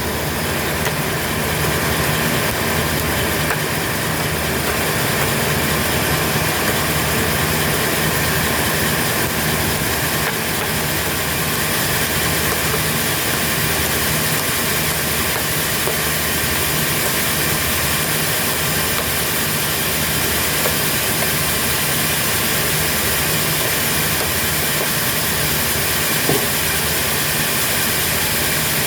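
Sawmill machinery running steadily: a constant engine drone with a steady hiss.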